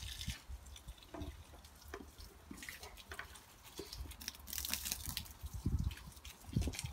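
Water from a garden hose splashing and dripping onto the leaves and soil of a vegetable bed, in scattered quiet drips and splashes.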